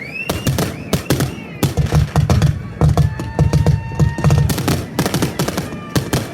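Fireworks going off in a rapid barrage of bangs and crackles. Whistling shells rise in pitch near the start, and a steady whistle sounds around the middle.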